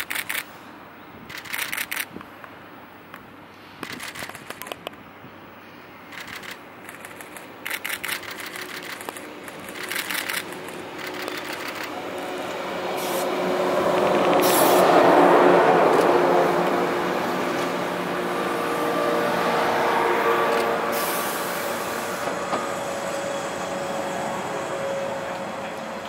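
Converted 413-series electric train pulling into a station and passing close: short clatters every second or two as it approaches, then the run of wheels and running gear swells to a peak about fifteen seconds in, with steady whining tones, and eases as the train slows to a stop.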